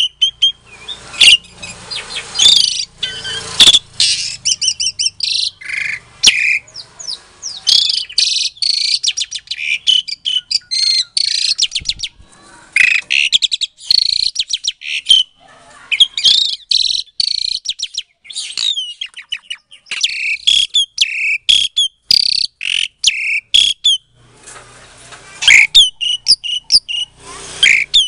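Javan pied starling (jalak suren) singing a long, busy run of loud whistles, chatter and sharp chirps, many quick notes in a row broken by short pauses.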